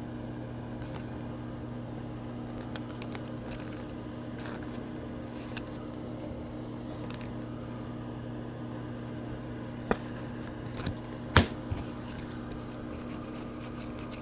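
Trading cards and clear plastic being handled over a steady low hum: soft scratchy taps and rustles, with a few sharper clicks near the end.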